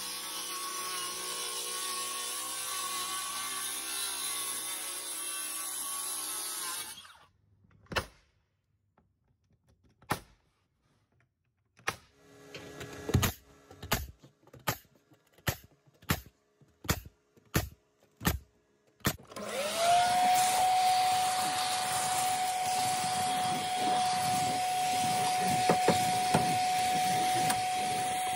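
A circular saw cuts plywood roof sheathing for several seconds. Then a pneumatic nail gun fires about a dozen single shots, most of them roughly 0.7 s apart, nailing the sheet down. From about 20 seconds in, a vacuum whines steadily as its nozzle sucks up debris from the roof deck.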